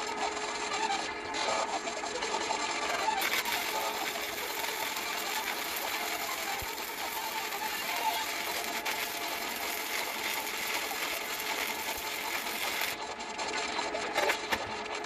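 Stick-welding (SMAW) arc crackling steadily for about ten seconds, striking up about three seconds in and cutting off near the end. A softer steady noise comes before it.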